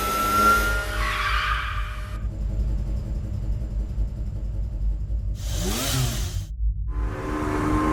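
Layered sci-fi vehicle sound effects: a low rumble under humming engine-like tones, with a noisy whoosh about six seconds in whose pitches slide down and up, cutting off suddenly before new humming tones start.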